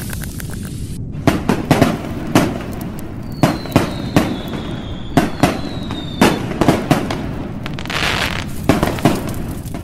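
Fireworks going off: a string of sharp bangs and pops over a low rumble, with a thin falling whistle that lasts about three seconds in the middle.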